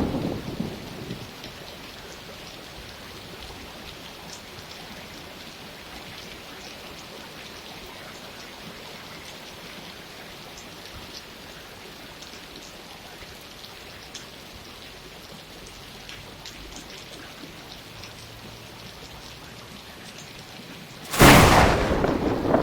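Steady rain falling, with small drops ticking through it. A loud thunderclap fades out in the first second, and another breaks suddenly about a second and a half before the end.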